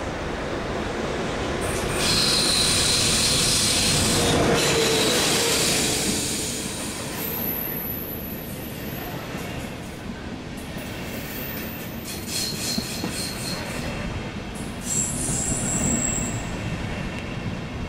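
Passenger train of red regional coaches running past on the near track. It is loudest a few seconds in as it arrives, then settles into steady rolling noise with high-pitched wheel squeal coming and going.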